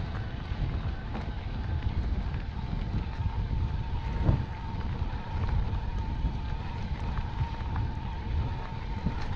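Wind buffeting the microphone and the rumble and rattle of an electric mountain bike riding a dirt trail, with a steady high whine setting in about three and a half seconds in and a single thump a little after four seconds.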